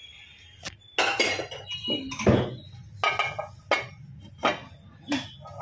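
Stainless steel bowls and utensils clinking and clattering during dishwashing: a string of about eight sharp metallic knocks, several ringing briefly.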